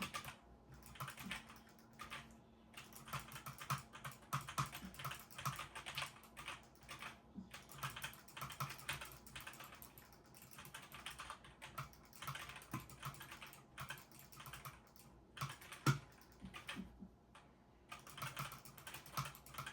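Typing on a computer keyboard: irregular key clicks in quick runs, broken by a few short pauses.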